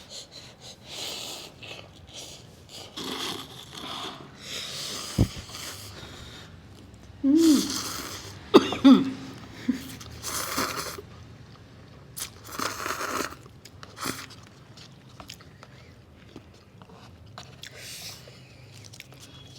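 Eating sounds close to the microphone: irregular bursts of crunching, biting and chewing, with a few short vocal sounds about seven to nine seconds in.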